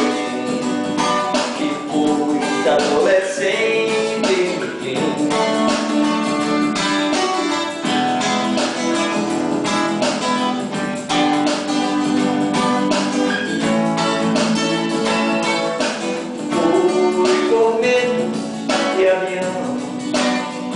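Twelve-string acoustic guitar strummed steadily in an even rhythm, chords ringing.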